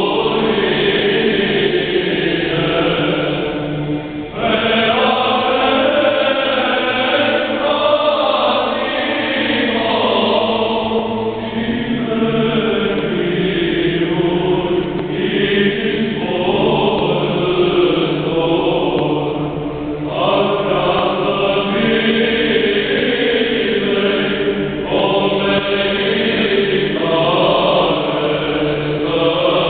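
A Romanian Orthodox church choir singing a hymn in slow, chant-like phrases. New phrases enter about four seconds in, again near twenty seconds, and again about five seconds later.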